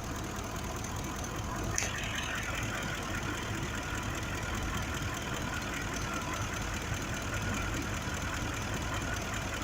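The 5.4-litre V8 of a 2005 Ford F-150 idling steadily, with a misfire on cylinder 2 that is put down to a failing fuel injector. A single faint click about two seconds in.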